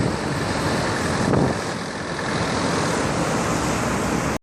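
Road traffic on a hill highway: heavy vehicles running steadily, with a low engine rumble and tyre hiss that swells briefly at the start and again about a second and a half in. The sound cuts off suddenly at the end.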